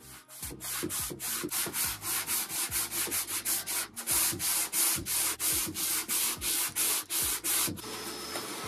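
Sandpaper on a hand sanding block rubbed back and forth over a wooden panel, rasping strokes about three a second. Near the end the strokes stop and a steady hum begins.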